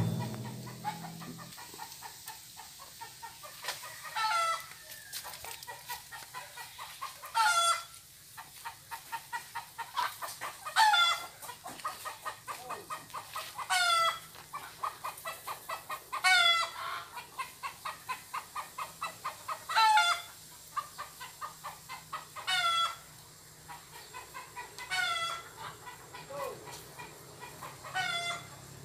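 A chicken cackling: runs of short clucks, each ending in a louder, longer call, repeated about every three seconds.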